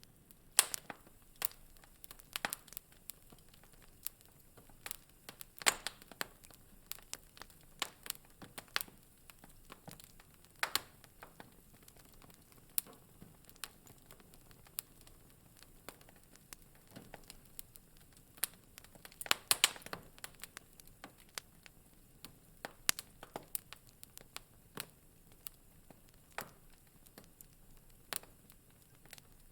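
Wood fire in a fireplace crackling: irregular sharp pops and snaps over a faint hiss, with a quick run of pops about two-thirds of the way through.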